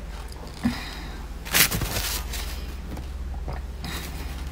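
Chewing a mouthful of frozen ice, with one loud sharp crunch about a second and a half in and a few faint smaller crunches after.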